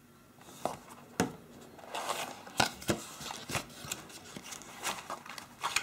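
Cardboard phone box being handled and opened: a series of sharp taps, clicks and scrapes of the card flaps and packed accessories, with some rustling.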